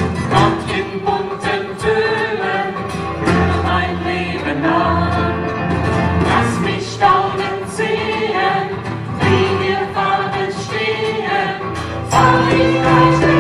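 Crowd of voices singing a song together, accompanied by a live band with guitars, bass notes and keyboard.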